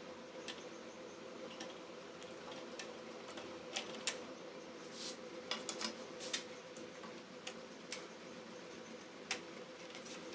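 Scattered light clicks and taps from small parts being handled, irregular and a dozen or so in all, over a steady hum.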